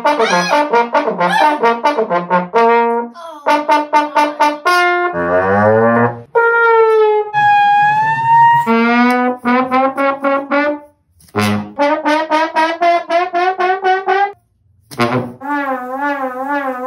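Trombone played as comic sound effects: runs of short, quick notes, a few notes sliding down in pitch, and a wobbling, warbling note near the end, with brief breaks between phrases.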